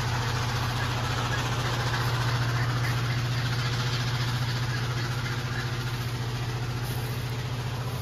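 A motor running with a steady low hum that holds the same pitch and level throughout.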